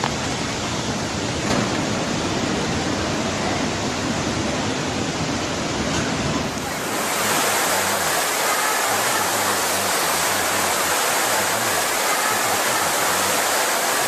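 Loud, steady rush of floodwater. About seven seconds in it changes abruptly to a brighter, hissier rush of water, with faint voices beneath.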